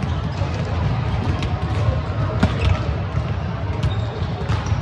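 Sports-hall noise during volleyball play: a steady low rumble with scattered sharp ball hits and knocks, the loudest about two and a half seconds in.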